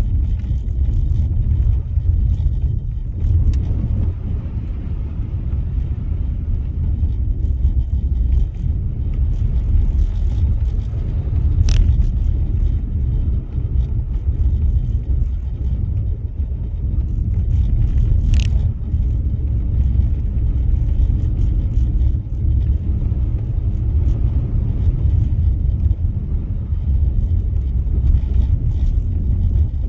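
Car driving on a snow-covered road, a steady low rumble of engine and tyre noise. Two short sharp clicks come about 12 and 18 seconds in.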